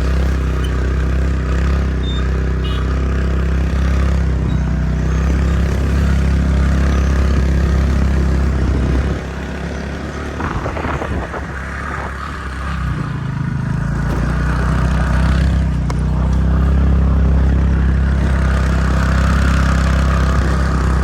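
Scooter engine running steadily while riding over a rough road. About nine seconds in, the throttle eases and the engine drops in level, then it picks up again a few seconds later.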